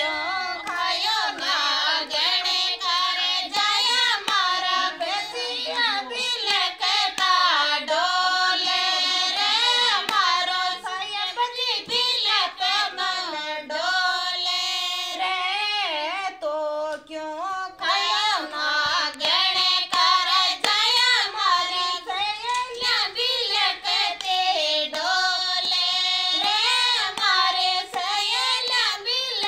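Women's voices singing a Rajasthani folk song to Tejaji together, in a continuous high, melismatic line that bends and glides in pitch.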